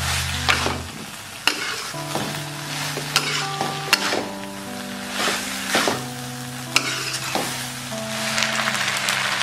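Udon noodles sizzling in a wok as a spatula stirs and tosses them, with sharp clicks and scrapes of the spatula against the pan, over background music.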